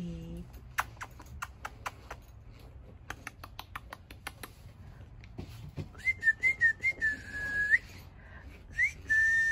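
A person whistling: a few short wavering notes, then a held note, then a quick rising note and another held whistle near the end. A run of irregular clicks comes before the whistling, in the first half.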